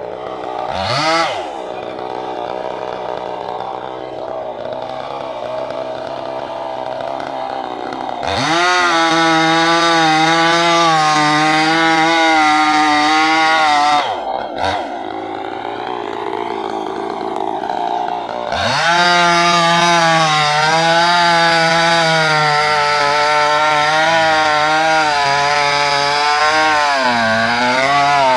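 Chainsaw idling with a quick blip of the throttle, then running at full throttle twice, once for about five seconds and once for about ten, its pitch wavering as the chain cuts wood.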